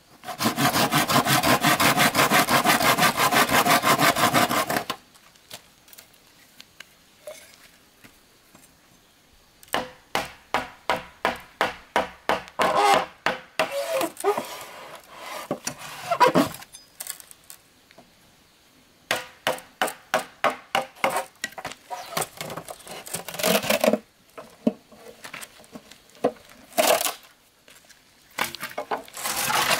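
A machete sawing rapidly into a green bamboo tube for about four seconds, then, after a pause, runs of sharp knocks, two or three a second, as the blade is driven along the tube with a wooden baton to split it open.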